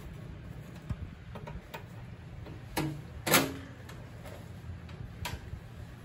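Light metallic clicks and taps as a sheet-steel cover plate is seated on a microwave's underside and its screw is started with a screwdriver. The loudest knock comes about three seconds in.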